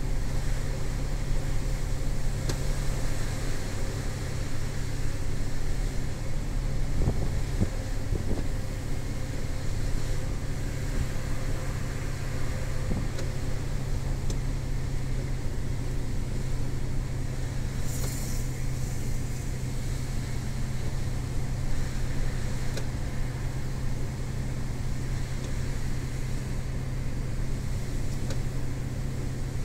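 MAN TGS 18.400 truck's diesel engine running steadily with road noise, heard from inside the cab while driving. A brief hiss comes about eighteen seconds in.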